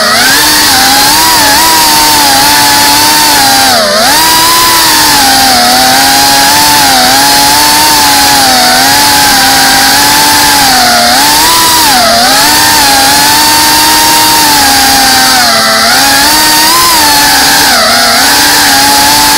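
GEPRC Cinelog 35 FPV drone's brushless motors and propellers whining loudly in flight, picked up by the onboard RunCam Thumb Pro camera. The pitch sags and climbs back every few seconds as the throttle changes, with the deepest dips about four, twelve and sixteen seconds in.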